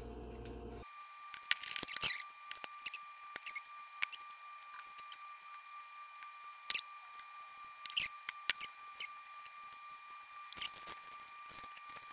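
Scattered short scratchy rasps and light clicks from hands sprinkling salt over raw veal sweetbreads and rubbing it in on plastic cutting boards. A faint steady thin tone sits underneath.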